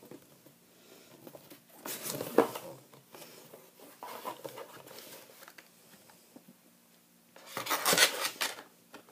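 Cardboard box being opened by hand: the lid and inner flaps rustle and scrape, with a louder burst about two seconds in, a smaller one around four seconds, and another near the end as a packaged item is lifted out.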